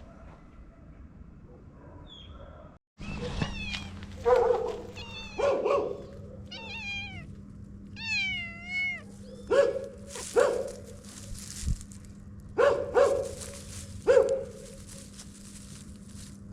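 Dogs barking in short sharp barks, repeated in quick pairs, after a few seconds of wavering, whining calls that rise and fall in pitch.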